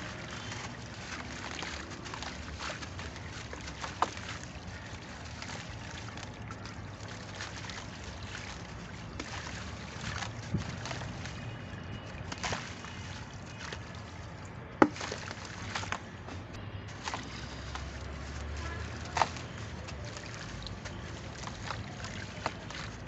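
Compressed red sand being crushed and crumbled: a steady grainy rustle with scattered sharp crunches, the loudest about fifteen seconds in.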